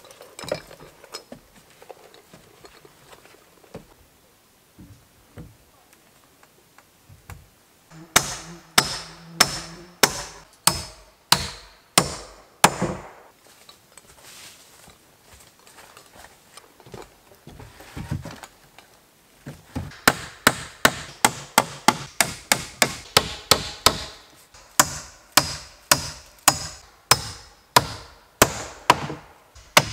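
Hammer blows on wood, driving nails into a timber frame: a run of sharp strikes about two a second starting about eight seconds in, a pause, then a longer steady run from about twenty seconds in.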